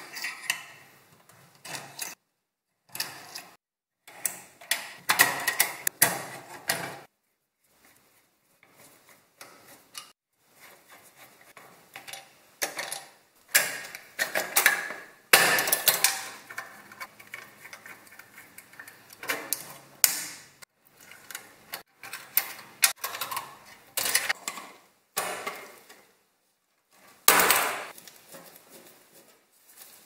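Irregular clicks, taps and metal scrapes of a screwdriver working on an old fan heater's wiring: spade connectors being pried off their terminals and a screw worked in a ceramic terminal block. The sounds come in short clusters with brief silences between them.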